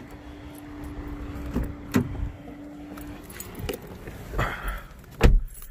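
A car door being opened by its handle with a few sharp clicks and some jangling of keys, then rustling as someone climbs into the driver's seat. The door shuts with a heavy thump about five seconds in, the loudest sound.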